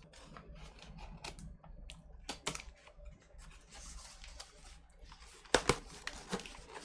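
Cardboard record mailer being handled, with scattered light scrapes and taps, and a couple of sharp clicks about five and a half seconds in.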